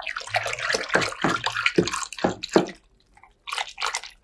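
Small hand wire whisk beating water in a plastic ebru tray to dissolve methyl cellulose thickener powder: quick sloshing strokes that break off about three seconds in, then a few more near the end.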